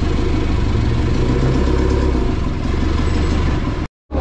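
A motor vehicle engine idling steadily, with a low even hum. The sound drops out completely for a moment near the end.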